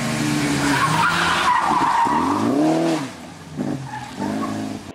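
Fiat 127 Gr.2's 903 cc four-cylinder engine revving hard as the rally car takes a tight bend, with the tyres squealing. About three seconds in, the engine note rises and falls and the sound drops away as the car pulls off.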